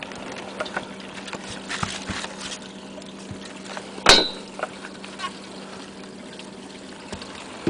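Water trickling and splashing with scattered small knocks, over a steady low hum. A single sharp metallic clank with a short ring comes about four seconds in.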